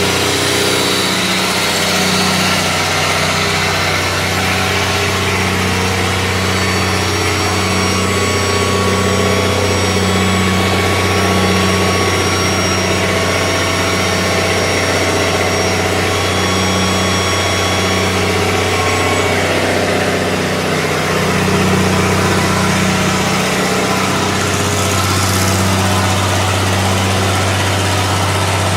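A generator and a Kobelco 60 hp oil-free rotary screw air compressor running together, a loud steady machine hum with a slow pulse about once a second. About two-thirds of the way through, the low hum changes and then settles again.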